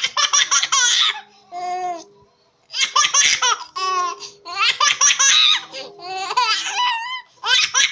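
A baby laughing hard in about six high-pitched fits, each a quick run of breathy ha-ha pulses, with short pauses for breath between them.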